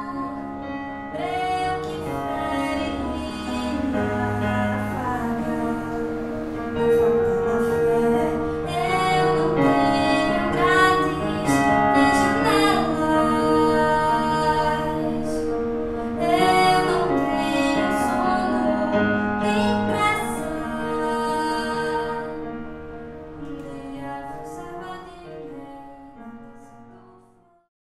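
Music: a woman singing long held notes over sustained accompaniment, fading out over the last few seconds.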